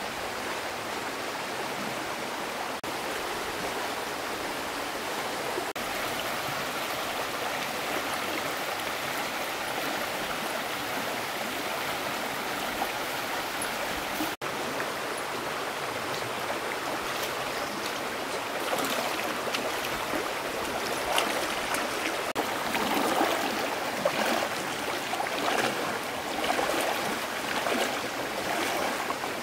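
Flowing water, a steady rushing noise that turns louder and more uneven, splashing and gurgling, over the last third.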